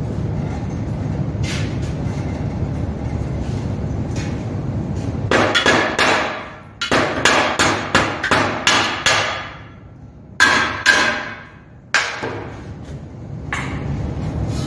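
A steady low hum, then a run of hammer blows on heavy-wall steel pipe set in a steel plate, each strike ringing, about two a second at their fastest, with a short pause and a few more blows after it.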